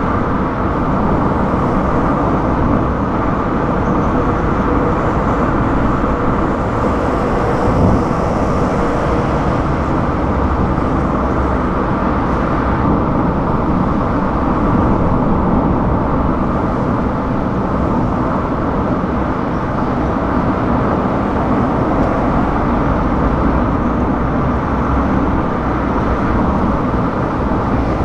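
Steady road noise of a car driving at highway speed: tyre roar on asphalt and engine hum, holding even throughout.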